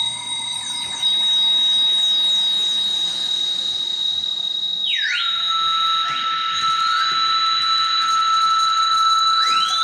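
Harsh-noise electronics played live on small boxes and pedals: a high steady tone over a hiss, laced with quick swooping glides. About five seconds in the tone dives in pitch and settles on a lower steady tone, and near the end another tone rises and falls back.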